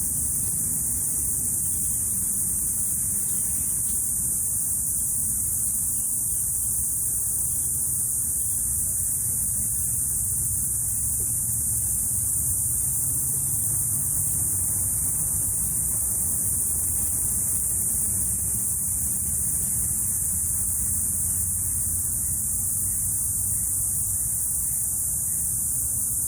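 Cicadas buzzing in one continuous high-pitched drone that never lets up, over a steady low hum.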